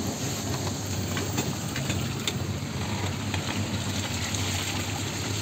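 A vehicle's engine running steadily as it drives along a muddy, rutted dirt road, with a few light knocks.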